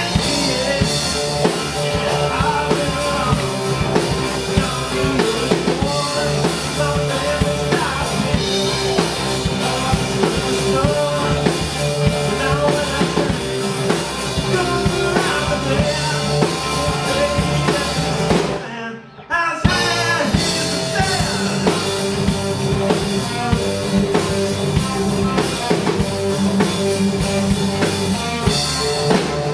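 Rock band playing live: electric guitars, bass guitar and drum kit. The music drops out for about a second, two-thirds of the way through, then comes back in.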